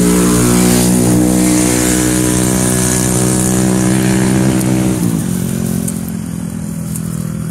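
A motor vehicle's engine running steadily and loud, its pitch dropping and its sound easing off about five seconds in.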